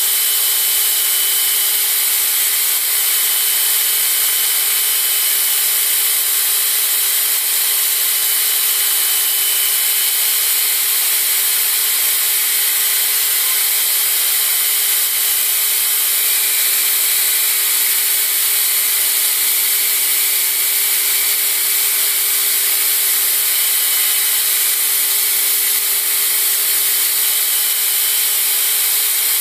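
Belt grinder running with a steel knife blade, held in a bevel jig, being ground against the abrasive belt to cut its bevels: a steady, loud grinding hiss.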